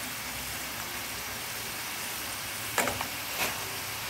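Potato fries sizzling steadily as they deep-fry in hot oil in a metal pan, with two short knocks about three seconds in.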